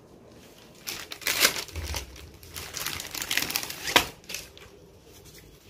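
Clear plastic book covers crinkling and rustling as they are handled, in bursts through the middle, ending in a sharp snap about four seconds in.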